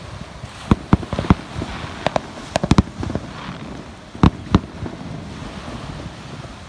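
Distant aerial fireworks shells bursting: a string of sharp bangs, several in quick succession in the first three seconds and two more a little past the middle, over a steady background hiss.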